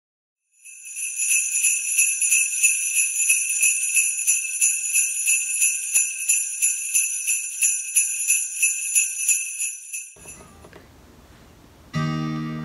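Jingle bells shaken in a steady rhythm for about nine seconds, then stopping. Near the end an acoustic guitar starts playing chords.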